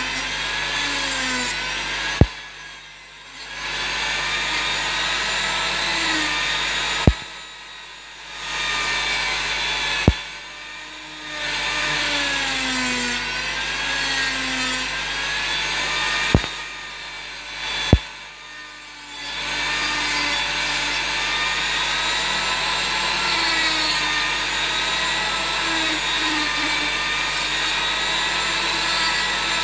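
Handheld rotary carving tool grinding bulk off a wooden dog-head carving, a steady whine that wavers in pitch. It cuts out briefly about five times, each time with a sharp click, then builds back up.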